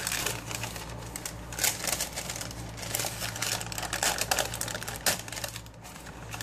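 Tissue paper rustling and crinkling as hands unfold it inside a cardboard gift box: a dense, uneven run of small crackles.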